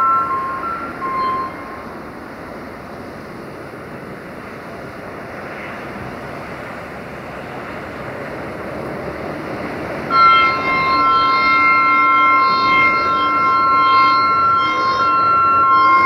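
Class 64 diesel locomotive's two-tone air horn. A blast ends and a short toot sounds in the first second and a half, then the approaching train runs more quietly. About ten seconds in, a long two-note horn blast starts and holds to the end with brief breaks.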